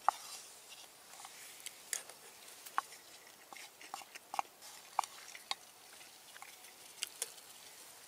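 A wooden spoon scraping and clicking against a small frying pan as food is scooped out and eaten, with some chewing; scattered light clicks throughout.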